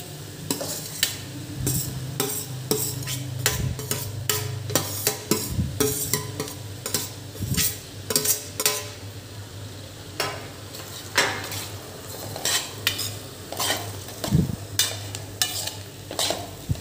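A spatula stirring and scraping crumbled boiled potatoes into frying spice masala in a nonstick kadhai, with many irregular clicks and scrapes against the pan and a light sizzle. A steady low hum runs underneath.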